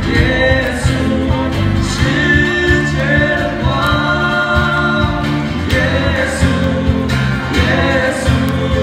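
A small group of singers performing a Christian hymn together into microphones, with amplified instrumental backing.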